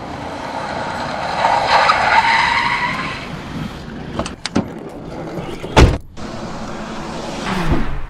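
A road vehicle passes close by, its noise swelling and then fading with a rising whine over about two seconds. A few sharp clicks follow, then one loud thump about six seconds in.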